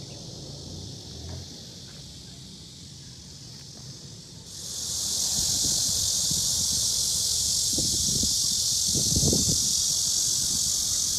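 Steady high-pitched chorus of insects, which jumps suddenly louder about four and a half seconds in. A few low thumps come in the second half.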